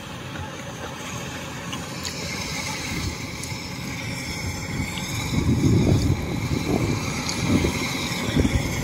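Rice combine harvester running as it cuts toward the listener, growing steadily louder, with a low rumble under faint steady high tones; the rumble swells about halfway through as the machine draws close.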